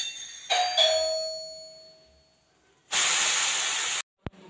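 A metal spoon strikes a metal kadhai twice while adding ghee, and the pan rings and fades over about two seconds. About three seconds in, a loud hiss lasts a second and cuts off abruptly.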